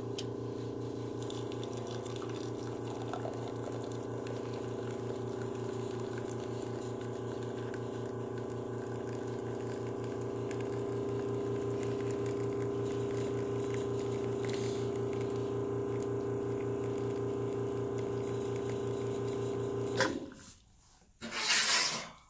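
Nuova Simonelli Aurelia Wave espresso machine pulling shots: its pump runs with a steady hum and a fast low pulse while espresso trickles into the glasses, a little louder from about ten seconds in, and stops about twenty seconds in. A short loud hiss follows near the end.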